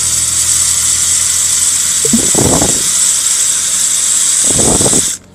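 Vacuum tanker truck running, a loud steady hiss over a low engine hum, with two short rushing sounds about two and four and a half seconds in; it all cuts off suddenly near the end.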